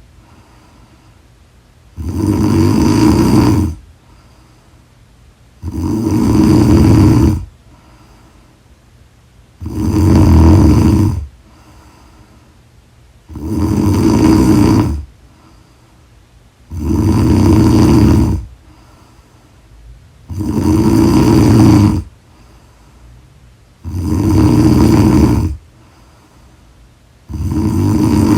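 A woman snoring in her sleep, loud and regular: a long snore about every three and a half seconds, with quiet breathing between.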